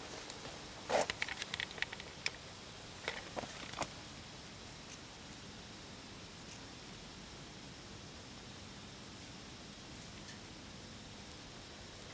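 Crackling rustles of footsteps and brushing through leaves and twigs, about a second in and again around three seconds in. After that comes a steady hiss under faint, high, evenly pulsing chirping of night insects.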